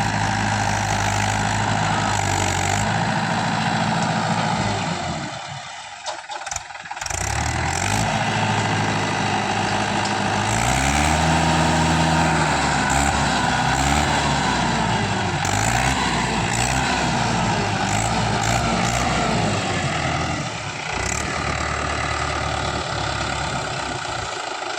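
Diesel tractor engine running under load and being revved, its pitch rising and falling again and again. The sound drops away sharply for a moment about six seconds in, then picks up again.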